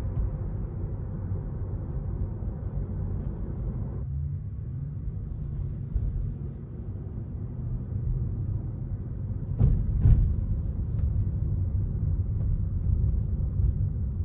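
Low road and tyre rumble inside the cabin of a Tesla Model 3 as it drives, with a couple of sharp knocks about ten seconds in.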